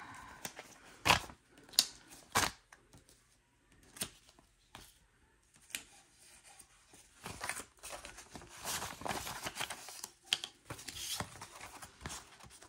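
Paper banknotes and envelopes being handled. Three sharp taps come in the first few seconds, then paper rustles and crinkles through the second half.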